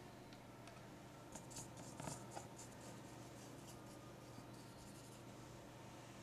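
Faint scrapes and light clicks of small hand tools against glass and plastic containers, over low room tone. The clicks are busiest about one and a half to two and a half seconds in.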